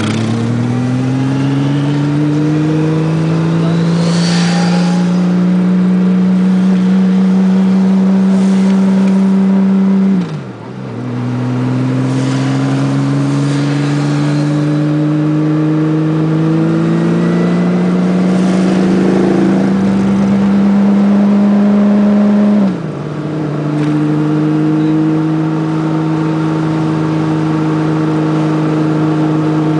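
Touring motorcycle engine accelerating through the gears. Its note climbs steadily, drops at an upshift about a third of the way in, climbs again, drops at a second upshift about three-quarters through, then holds steady at cruising speed.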